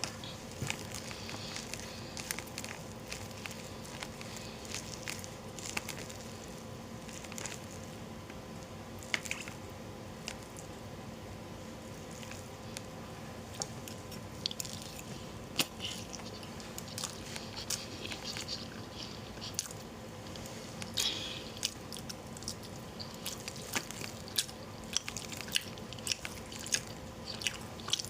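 Close-up chewing and mouth sounds of a person eating, with scattered wet clicks and smacks that come more often near the end. A faint steady hum runs underneath.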